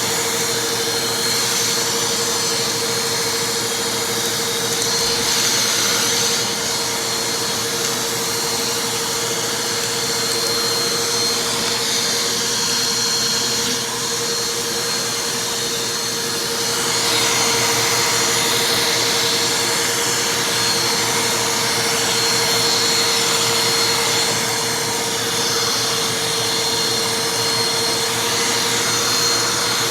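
Vacuum cleaner running steadily, a motor hum with a constant whine under a rushing airflow hiss that swells and fades as the nozzle moves over debris.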